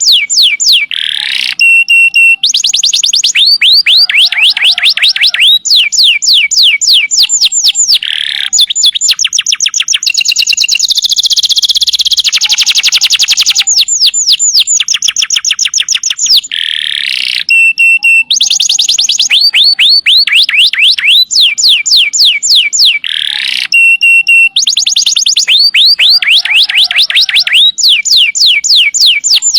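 Domestic canary singing a loud, continuous song of rapid trills: fast runs of falling whistled notes, broken by a buzzy roll about ten seconds in and a few short low notes. The same song passages come round again later.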